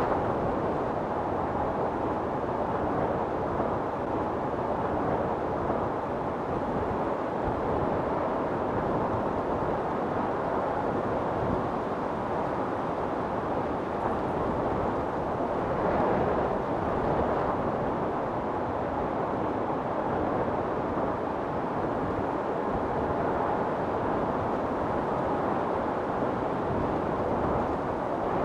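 Wind storm blowing steadily, a dense rushing noise that swells a little about halfway through.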